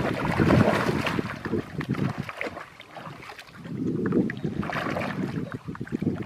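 Water sloshing and splashing in irregular rushes, swelling twice: near the start and again about four seconds in.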